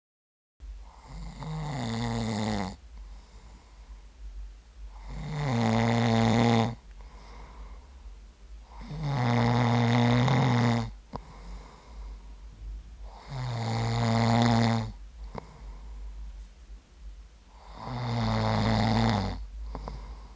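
A man snoring in his sleep: five long, deep snores, one about every four seconds, each lasting a second and a half to two seconds.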